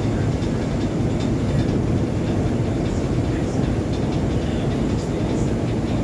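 Steady low rumble of a ship under way: the engines' drone mixed with the wash of the hull through the sea, with a few faint ticks above it.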